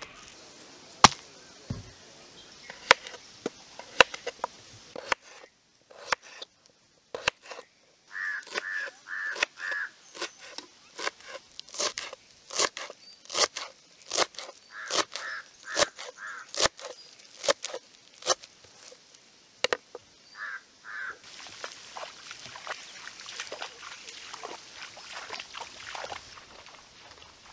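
A knife chopping fresh coriander leaves on a cutting board in quick, uneven strokes, with short runs of three or four bird calls among them. For the last few seconds the chopping gives way to an even outdoor hiss.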